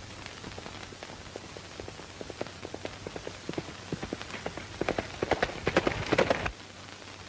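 Hoofbeats of a ridden horse, growing louder and quicker-sounding as it approaches, then stopping abruptly about six and a half seconds in. They play over the steady hiss of an old film soundtrack.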